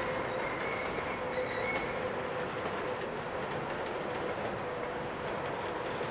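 A train of empty open-top hopper cars rolling past on a curve: a steady rumble of wheels on rail, with the wheels squealing thinly throughout. Higher squeals come and go in the first two seconds.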